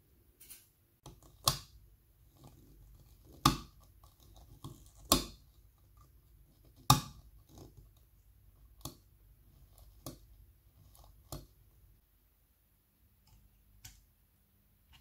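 Small metal parts of a pocket signal lamp clicking and tapping against its metal housing as they are handled and fitted. Four sharp clicks come in the first seven seconds, the loudest about seven seconds in, followed by fainter ones.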